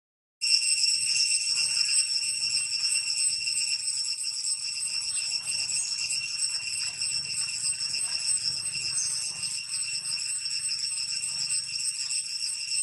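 A steady, shrill chorus of insects droning on without pause, after a brief dropout right at the start.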